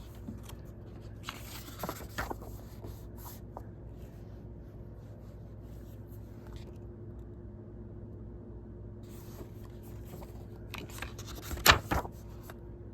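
Paper handling: booklet pages being turned and rustled, with two sharp knocks close together near the end, over a steady low hum.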